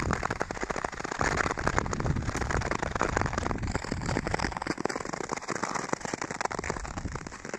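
Nordic skate blades gliding and scraping over snow-covered lake ice, a dense crackling hiss.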